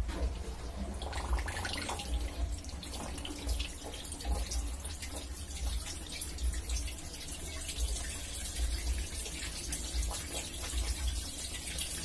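Water gushing steadily from a washing machine's corrugated drain hose and splashing onto a concrete floor, with a low rumble underneath. The drain flows strongly, its clog of leftover laundry residue cleared.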